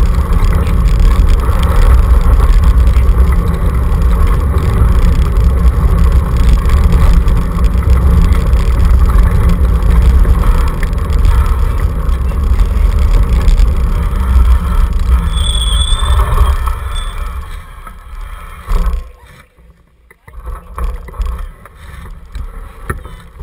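Loud, steady rumble of a dog scooter rolling fast over a gravel road, with wind buffeting the microphone. It dies away about 17 seconds in as the scooter slows to a stop. A brief high squeal sounds just before the rumble fades.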